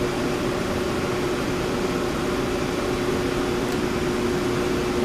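A motor running steadily, giving a constant mid-pitched hum over an even background noise.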